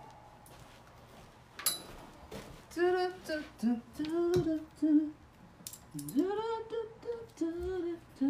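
A woman humming a tune to herself in short wordless phrases, starting about three seconds in, after a single sharp click.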